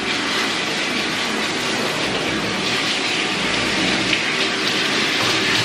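Handheld shower sprayer running, water spraying onto a wet German Shepherd's coat in a stainless steel grooming tub: a steady hiss.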